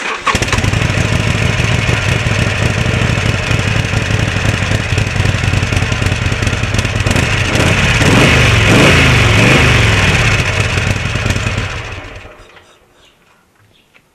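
Harley-Davidson Sportster 883's air-cooled V-twin is started and idles, is blipped a few times between about 7 and 11 seconds in, then is switched off and runs down about 12 seconds in.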